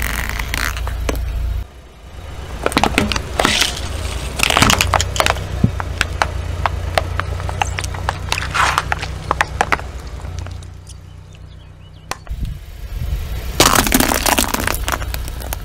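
Car tyre rolling over and crushing plastic toys, with several bursts of cracking and snapping over a low steady engine rumble; the loudest crack near the end is a hollow plastic toy shell breaking under the tyre.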